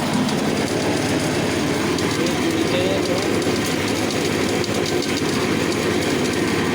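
Stainless-steel skin-separator machine running: a steady motor noise with a fast, continuous rattle.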